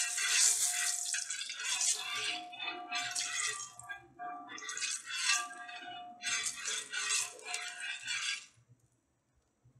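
Hot oil sizzling on a cast-iron tawa as a spatula works the pan, rising and falling in several surges, then cutting off suddenly near the end.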